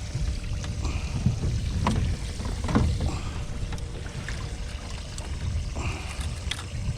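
Low, uneven rumble of wind buffeting the microphone on an open fishing boat, with a few light knocks of gear.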